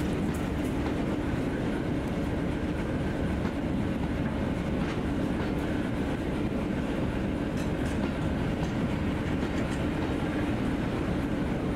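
Passenger coaches of a diesel-hauled train rolling past at low speed, a steady rumble with scattered sharp clicks from the wheels over the track.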